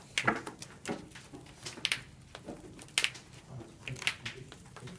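Irregular sharp clicks and taps, about eight in five seconds, from sleeved trading cards being handled and set down on the playmat.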